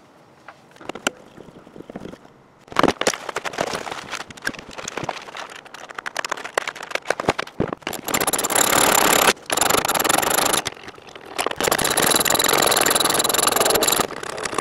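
Ratchet wrench clicking as it backs out the rear seat-belt anchor bolts from the car's floor pan: irregular clicks and scrapes at first, then two long runs of fast, continuous ratcheting, one about eight seconds in and one from about eleven seconds in.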